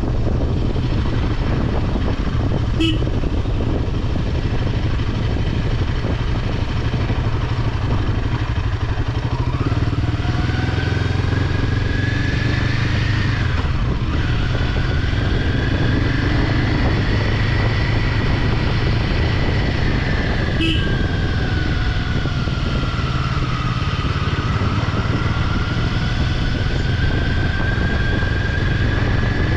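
Motorcycle being ridden, its engine running under a steady rush of road and wind noise. The engine note slowly rises and falls with speed, and there are two short clicks.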